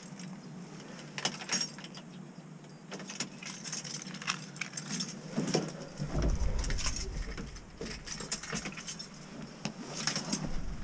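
A bunch of keys jangling, with scattered clicks and knocks as someone gets into a truck cab and reaches for the ignition. A low rumble lasts for a couple of seconds past the middle.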